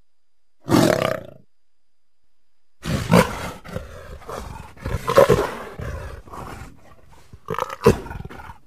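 Loud animal-like roaring calls made up as the voice of Ambulocetus, an extinct walking whale. There is a short call about a second in, a longer run of several calls from about three to seven seconds, and one more near the end.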